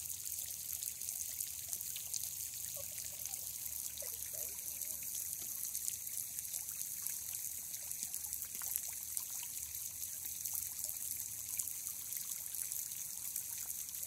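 Steady trickle of water from an artesian well's overflow running into a small pond.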